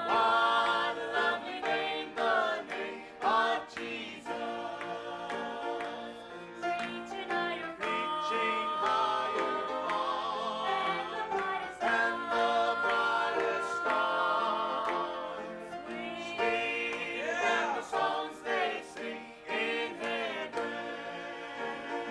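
A group of voices singing a gospel song in harmony.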